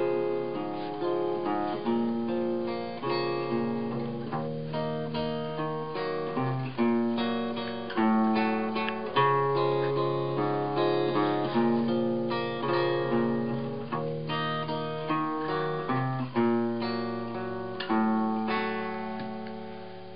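Solo acoustic guitar playing picked chords over alternating bass notes, each note ringing and fading; near the end the last chord is left to ring out.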